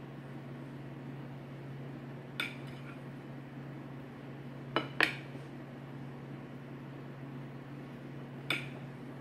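Kitchen knife clinking against a bowl as cheese is cut into cubes over it: four sharp, briefly ringing clinks, one about two and a half seconds in, a quick pair around five seconds and one near the end. A steady low hum sits underneath.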